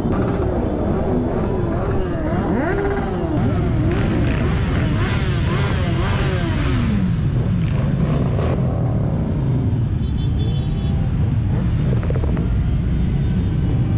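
Many motorcycle engines running together, riders blipping their throttles over and over so that revs rise and fall across one another, busiest in the first half and settling into a steadier low engine sound later.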